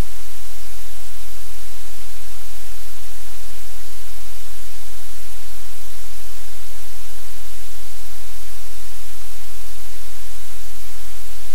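Loud, steady static hiss with a low hum underneath, unchanging throughout.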